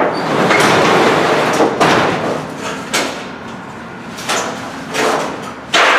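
Bent garage door being forced open, rattling and scraping loudly in several hard pushes with short pauses between them.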